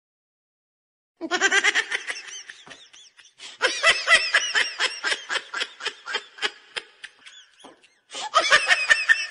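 A person laughing hard and high-pitched, in quick repeated bursts of about four a second. The laughter starts about a second in, stops briefly near the end, then starts again.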